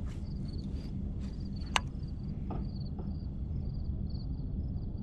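Open-air ambience: a steady low rumble with a faint high chirping repeating several times a second, and one sharp click a little under two seconds in, with a few softer clicks around it.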